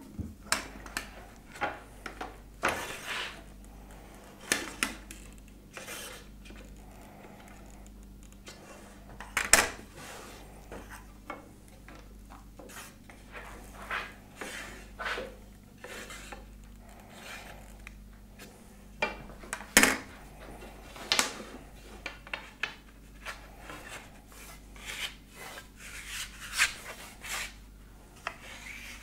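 Irregular knocks and clatter of thin wooden rods and metal hand tools handled on a workbench, mixed with short scraping strokes of a small hand tool along a rod's edge as the corners are eased.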